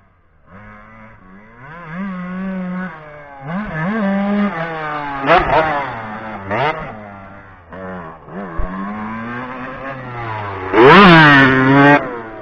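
Kawasaki KX 125 two-stroke motocross bike engine revving hard and backing off again and again as the rider takes the jumps, loudest in a long high rev near the end.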